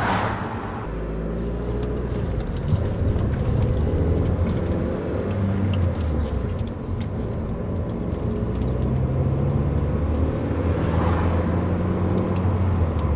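Inside a moving car: engine hum and road noise, with wind coming through an open window. The engine's pitch shifts up and down as the car drives, and a rushing swell of noise comes at the start and again about eleven seconds in.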